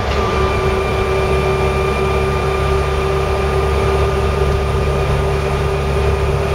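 Land Rover Series 3 heard from inside the cab at a steady cruise: engine and drivetrain rumble with a steady whine at one pitch over it. The whine comes from the drivetrain, which the owner takes for a noisy bearing in the back axle.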